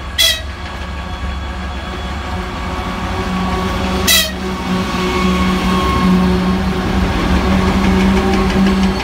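2TE116U diesel locomotive hauling a freight train, approaching and passing close by, its diesel engine droning steadily and growing louder. It gives two short horn toots, one right at the start and one about four seconds in.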